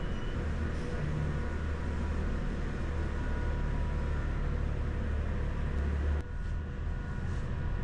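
Truck's diesel engine running, heard from inside the cab: a steady low rumble as the truck moves slowly. About six seconds in there is a sharp click and the rumble briefly drops.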